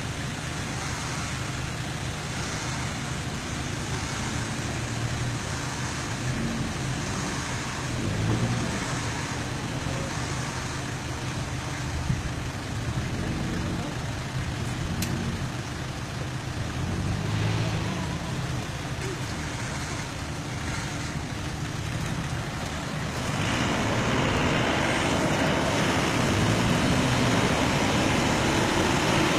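A 4x4 pickup's engine running steadily with a few short rises and falls in pitch; about 23 seconds in it grows clearly louder and fuller as the truck is driven through the muddy river.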